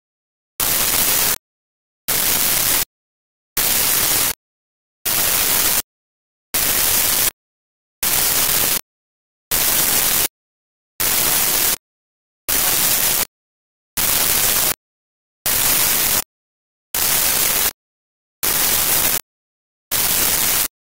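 Regular bursts of loud static hiss, each about three-quarters of a second long, repeating evenly about once every second and a quarter with dead silence between.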